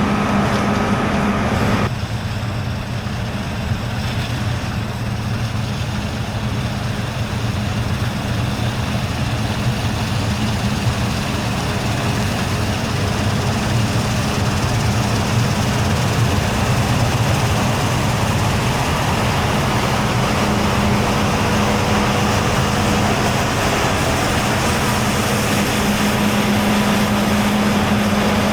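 Heavy diesel farm machinery running steadily at a wheat harvest, a combine harvester or tractor, with a constant hum. The sound changes abruptly about two seconds in, and the hum returns near the end.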